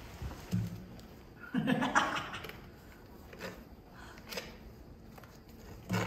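A person chuckling softly about two seconds in, with faint scrapes and taps of a small trowel scooping and spreading lime plaster.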